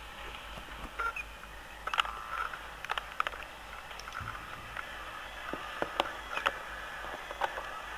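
Electronic thermometer making strange noises: irregular sharp clicks and a few short high blips, scattered unevenly over several seconds above a steady hiss.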